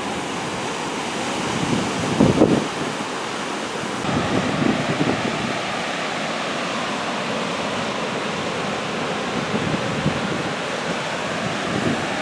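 Heavy Atlantic surf from hurricane swells breaking and washing up the beach, a steady roar of noise. Wind rumbles on the microphone, loudest about two seconds in.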